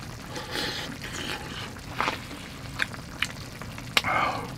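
Liquid sounds and a few sharp utensil clinks as stew with tofu and meat is scooped from the pot.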